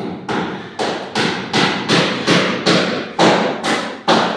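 A rapid run of hard knocks, about two to three a second, each dying away quickly.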